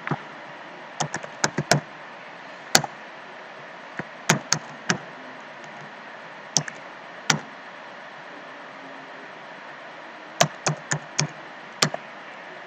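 Typing on a computer keyboard: small clusters of sharp key taps with pauses of a second or two between them, over a steady faint hiss.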